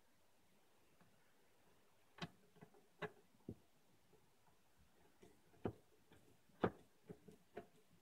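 Faint, irregular clicks and taps of a screwdriver and screws against the power supply and the steel computer case as the PSU is screwed into place. There are about seven of them, spaced unevenly, and the loudest comes about two-thirds of the way through.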